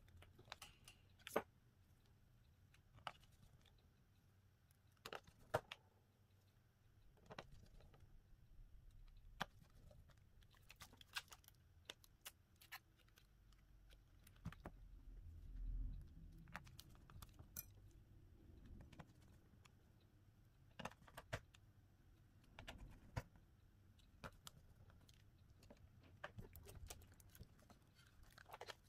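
Faint, irregular small clicks and taps of a smartphone and small repair tools being handled, a dozen or more scattered through, with a brief low rumble about halfway.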